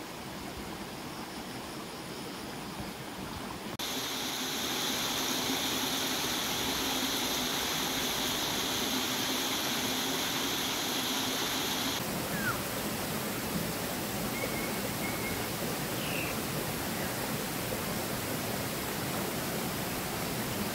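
Steady rush of a small stream and waterfall flowing over rocks and a low weir. From about four seconds in to about twelve seconds a steady high buzz sits over the water, and a few short chirps come near the middle.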